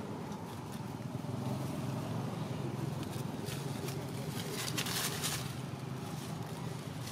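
Steady low rumble in the background, with a brief spell of dry leaves rustling and crackling about five seconds in as macaques move over the leaf litter.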